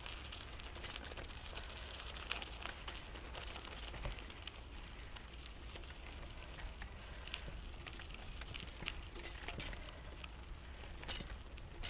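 Faint, irregular crunching and ticking of loose gravel on a dirt road being travelled over, over a steady low rumble.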